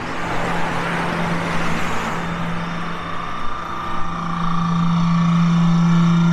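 Street traffic: a vehicle passes over the first couple of seconds, then an engine runs steadily and grows louder from about four seconds in, over a constant low hum.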